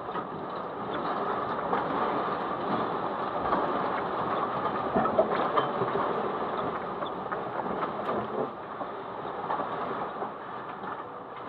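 A car's body and loose contents rattling and creaking without pause as strong earthquake shaking rocks it, heard from inside the cabin, with a continuous rumbling clatter full of small clicks.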